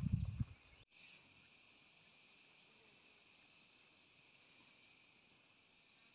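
Steady insect chorus of crickets or cicadas, a continuous high buzz with faint regular ticks. A short burst of low thumps comes right at the start.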